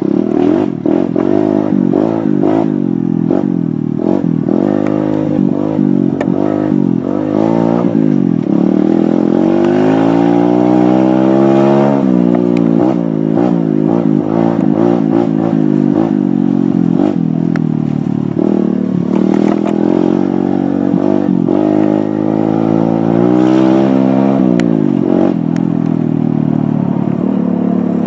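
Dirt bike engine being ridden hard, revving up and down, with knocks and rattles as it goes over bumps. The revs climb steadily twice, around the middle and again later, each time dropping off sharply.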